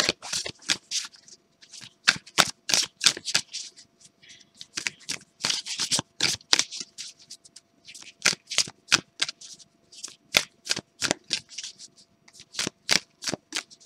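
A deck of thick-stock oracle cards being shuffled by hand: a long run of quick, crisp swishes and flicks of card against card, in clusters with brief pauses between them.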